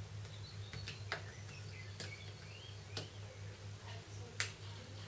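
Sparse, faint sharp clicks of a Samsung Galaxy S2's plastic casing clips snapping free as the casing is pried off with a small flathead screwdriver, about four clicks spread over a few seconds, over a steady low hum.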